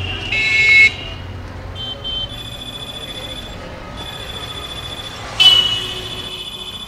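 A mobile phone ringing with a steady electronic tone, with two short vehicle-horn toots, one near the start and a louder one about five seconds in.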